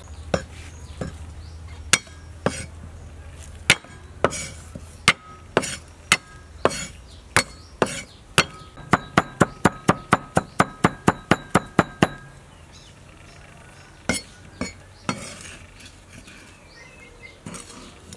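Broad-bladed kitchen knife chopping garlic and shallots on a wooden cutting board. Irregular chops at first, then a fast even run of about four a second in the middle, then a few scattered strikes.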